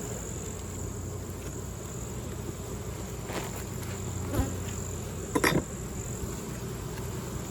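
Honeybees buzzing steadily around an open hive, with a few short knocks about halfway through and again near five and a half seconds.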